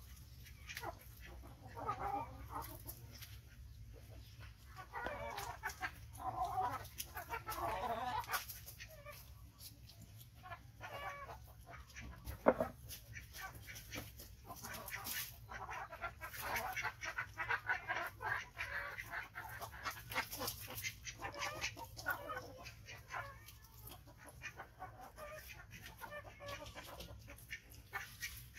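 Short animal calls come and go, with scattered small clicks and one sharp knock about twelve and a half seconds in.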